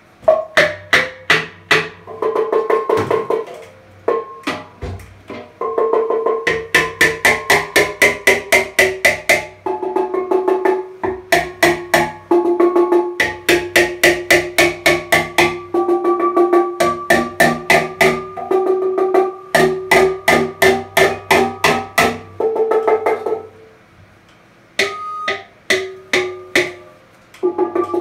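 Small hammer tapping rapidly on a handpan's steel shell during tuning, about five strikes a second, each tap setting the note ringing with clear pitched tones; the run of taps breaks off briefly a few times.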